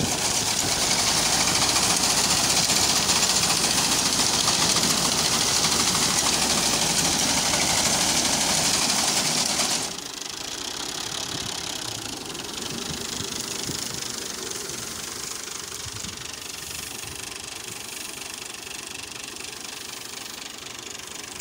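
Fiat tractor's diesel engine running while its front-mounted reaper cuts standing wheat. For about the first ten seconds the sound is loud with a strong hiss over the engine, then it drops suddenly to a quieter, steady engine run.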